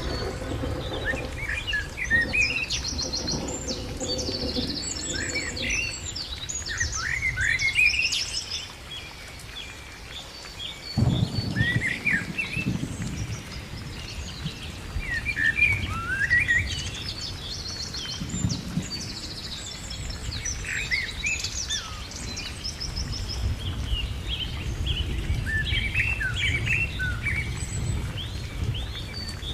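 Many birds chirping and singing, their short calls overlapping, over a steady low rumble that fades briefly and returns suddenly about eleven seconds in.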